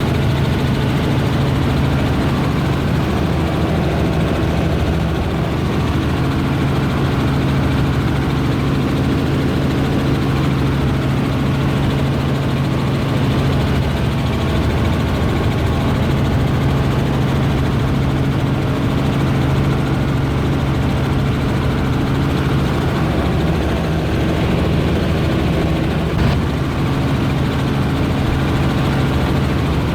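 Helicopter engine and rotor running steadily in flight, heard from aboard: a constant low hum over an even rush of noise, unchanging throughout.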